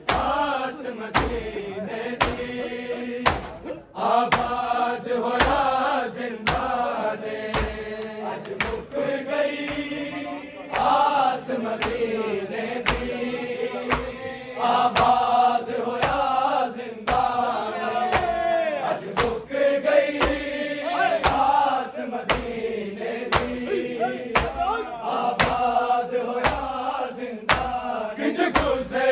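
A group of voices chanting a noha, a Shia mourning lament, with a steady beat of sharp strikes keeping time, in the manner of matam (chest-beating).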